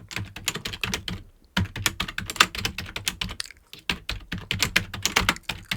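Fast typing on a computer keyboard, many key clicks in quick runs with short pauses between them.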